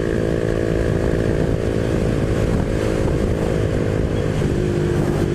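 Honda Biz 125's single-cylinder four-stroke engine running at steady high revs while riding, with wind rumble on the microphone; the engine pitch drops slightly about four seconds in.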